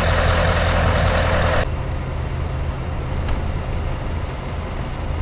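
Scania truck engine running close by with a steady low hum, cutting off abruptly about a second and a half in. After that a quieter steady low engine hum is heard from inside a car, with a single click about three seconds in.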